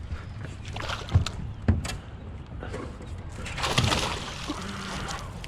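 Sharp knocks on a small fishing boat and a splashy rush of water as a hooked bass is fought to the side and landed.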